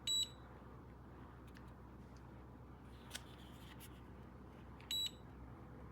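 Two short, high electronic beeps about five seconds apart, one right at the start and one near the end.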